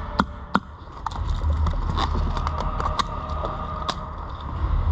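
Scattered airsoft gun shots: single sharp cracks at irregular intervals, a few louder ones about a second apart among fainter ones, over a steady low rumble.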